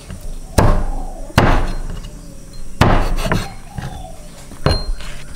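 About five sharp knocks or blows, irregularly spaced, each ringing briefly.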